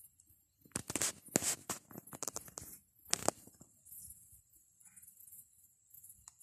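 Dry leaves and twigs rustling and crackling in a cluster of quick bursts about a second in, one more just after three seconds, and a faint one near the end, with night insects chirping steadily behind.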